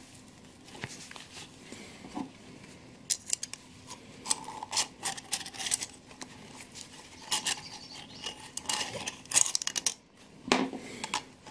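Steel clock mainspring being worked out of its brass barrel by hand: a run of sharp metallic clicks and scrapes as the coils slip free, densest about nine seconds in.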